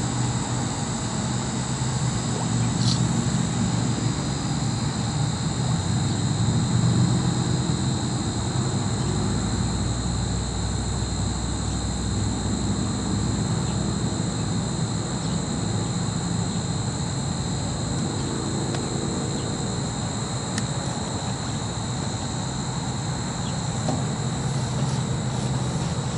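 Refrigeration condensing unit running: a steady hum and rumble from its compressor and condenser fan, with a steady high-pitched whine over it.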